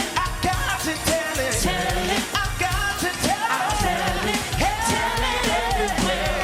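Gospel song performed live: voices singing over a backing with a steady drum beat and bass.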